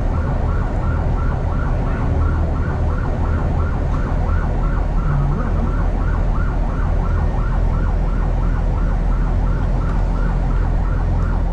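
Electronic yelp siren cycling rapidly, about three falling sweeps a second, over the steady low rumble of a vehicle on the move.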